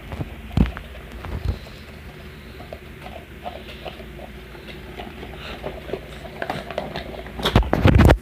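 Handling noise: knocks, taps and rustles from hands and a puppet being moved against the phone, with two sharp knocks early and a loud rapid cluster of thumps near the end.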